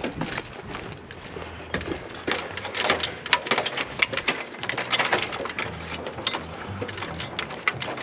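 A run of irregular mechanical clicks and rattles, thickest from a couple of seconds in to about five seconds in.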